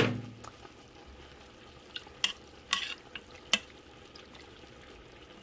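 A spoon stirring cooked collard greens and their liquid in a stainless steel Instant Pot inner pot. There is a sharp knock against the pot at the start, then a few light clicks.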